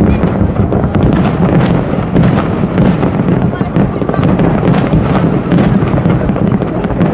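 Fireworks bursting and crackling in rapid succession, with many sharp bangs over a continuous crowd din of voices.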